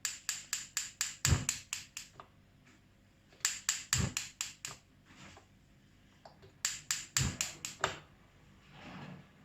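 Gas stove's spark igniter clicking rapidly, about five clicks a second, in three bursts of one to two seconds each: repeated attempts to light the burner.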